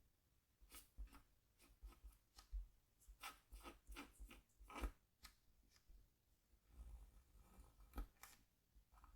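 Scratch tool scraping short strokes into a scratchboard's coating: a faint, irregular run of quick scratches, thicker in the middle and sparser near the end.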